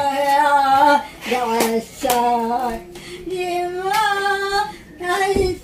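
An elderly woman singing a Christmas carol with no accompaniment, in phrases of long held notes.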